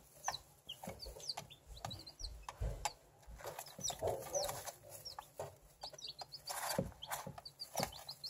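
Baby chicks peeping, a steady stream of short high chirps, some gliding up or down in pitch, while they eat cracked corn. Sharp taps of beaks pecking the feed dish come in among the peeps.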